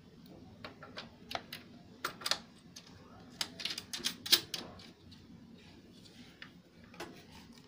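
Scattered sharp clicks and taps as the plug of a 12 V mains adapter and its cable are handled and pushed into the power socket on the plastic case of a small echo mixer. The clicks come in a few short clusters.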